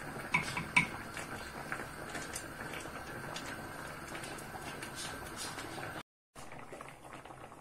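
A steel pot of tomatoes simmering with a steady low hiss as they soften and release their juice. About half a second in there are two sharp, ringing knocks, a wooden spoon tapped against the pot's rim.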